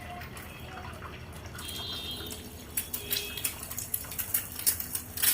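Steady hissing kitchen noise, with sharp clicks and clatter starting about three seconds in and growing busier toward the end.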